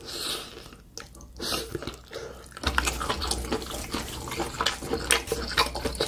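Close-miked mouth sounds of chewing grilled octopus: rapid clicks and smacks, quieter at first, then denser and louder from about two and a half seconds in.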